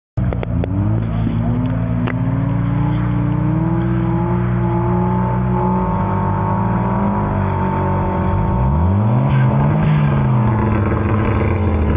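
Volvo 740 engine revving hard while the car slides sideways on packed snow. The pitch climbs steadily for the first several seconds, then rises and falls once near the end.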